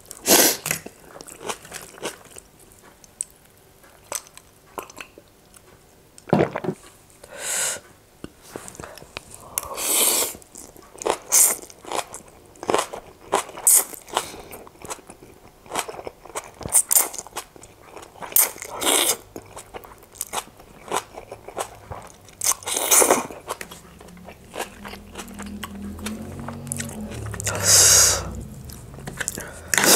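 Close-miked eating of chicken keema noodles: repeated noodle slurps and wet chewing with sharp mouth clicks, in irregular bursts.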